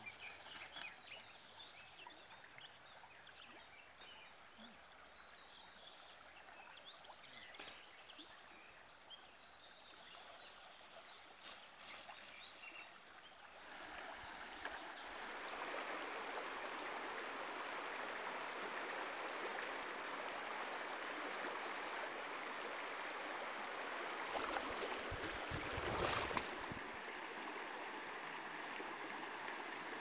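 Shallow mountain river rushing over rocks, faint at first and then a steady, louder rushing from about halfway. Near the end comes a brief low rumble and a sharp knock.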